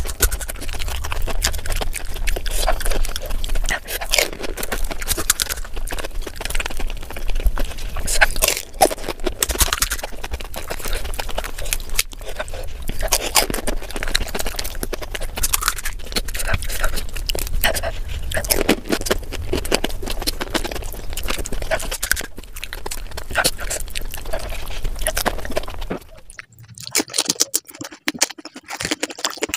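Close-miked eating of panipuri: crisp puri shells cracking under the fingers, crunching and chewing, with wet mouth sounds. About 26 seconds in it changes to a quieter, sparser run of clicks.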